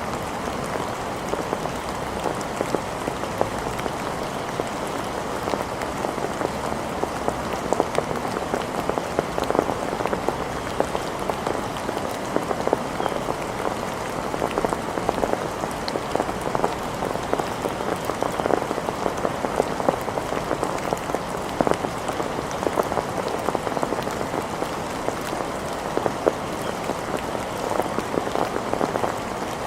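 Steady rain falling, with many sharp individual drop hits close by over an even hiss.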